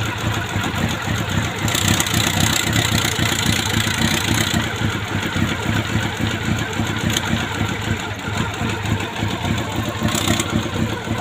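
Honda CB400 motorcycle engine idling steadily with a rattling noise from inside it, which the owner thinks may come from a clogged oil strainer starving the pump and a slapping chain or worn sprocket.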